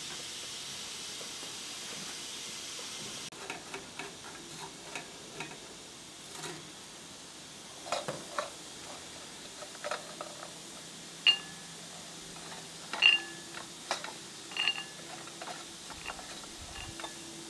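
Metal spoon scraping and clinking in a pan and against a ceramic plate as a dry mix of nuts or seeds is spooned out, with scattered clicks and a few sharp ringing clinks of china. A steady hiss at the start cuts off suddenly about three seconds in.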